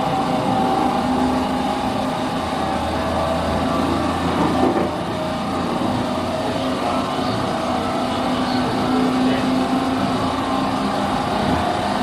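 Running noise heard inside a JR 209-500 series electric train car, with a loud steady tonal drone from the bogie. It is an abnormal noise that the uploader takes for a bearing fault rather than an electrical one.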